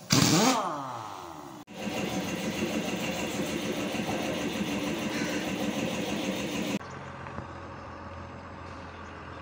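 Truck diesel engine running in edited segments. First a brief loud sweeping sound, then a louder engine note for about five seconds. This cuts off suddenly to a quieter steady idle for the rest.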